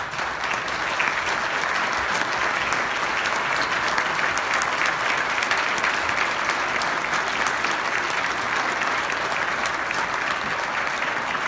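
A chamber full of people applauding: dense, steady clapping from many hands at once.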